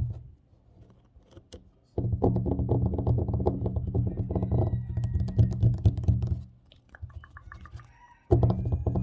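Fast, dense tapping on a tabletop with the fingertips and nails. It starts about two seconds in and runs for about four seconds, stops, gives a short run of lighter clicks, then starts again near the end.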